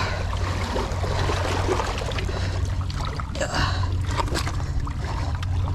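Seawater sloshing and gurgling among breakwater rocks, with a few splashes, the loudest about three and a half seconds in, as a hooked kingfish is pulled out of the water.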